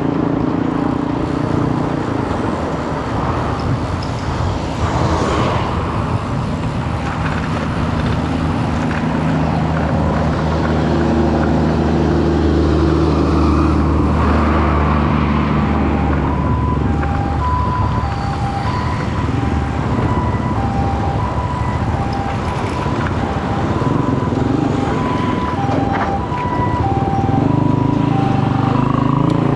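A heavy vehicle engine running steadily. From about halfway, a two-tone alarm alternates rapidly between a lower and a higher pitch.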